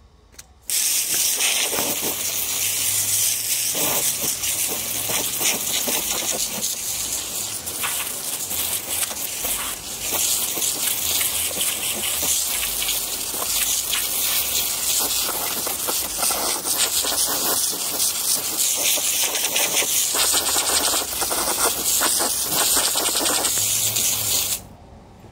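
Water spraying hard from a hose nozzle, hosing mud off RC trucks: a steady hiss that starts sharply about a second in and cuts off suddenly near the end.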